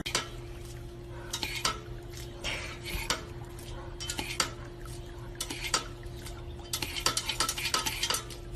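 Irregular light clinks and clatters, like small hard objects knocking together, over a steady hum.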